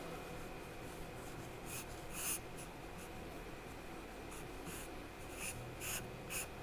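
Charcoal being drawn across paper in a series of short, scratchy strokes, several separate marks coming more often in the second half, over a faint steady hum.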